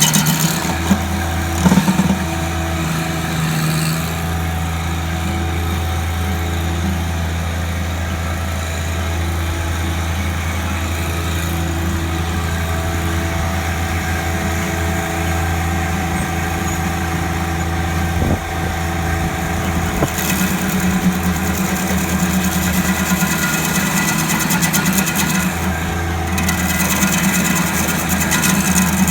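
An engine running steadily at a constant speed, with a couple of brief knocks along the way.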